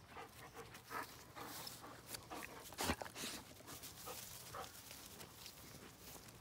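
A dog playing close by on grass: scuffling steps and short dog sounds, faint overall, with one sharp knock just before three seconds in.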